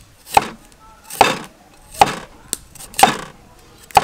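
A cleaver slicing a root on a round wooden chopping block. There are five evenly spaced chops, about one a second, each a sharp knock of the blade on the wood with a short rasp as it cuts through.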